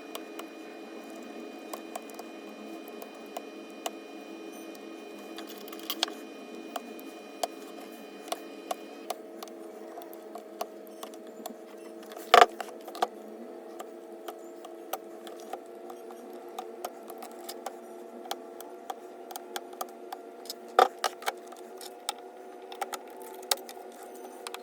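Scattered small clicks and taps from laptop parts and hand tools being handled during disassembly, two of them sharper and louder, about halfway through and again later, over a steady hum.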